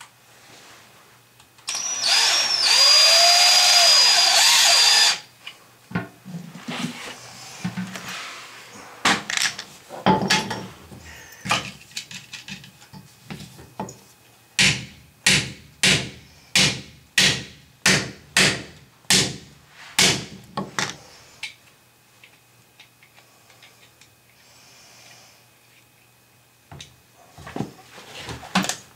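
Power drill running for about three and a half seconds, its pitch sagging briefly as it takes load. Later comes a steady run of about a dozen sharp strokes, two a second.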